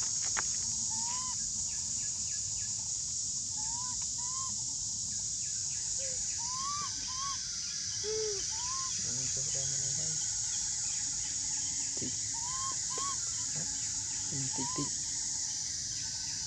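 Outdoor ambience: a steady high-pitched insect drone, with short chirp-like animal calls that rise and fall in pitch, often in quick pairs, repeating every second or two.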